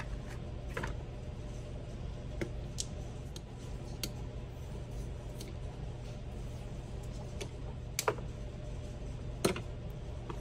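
Hands handling wiring and plastic electrical connectors: scattered light clicks and taps, the two sharpest about eight and nine and a half seconds in, over a steady low hum.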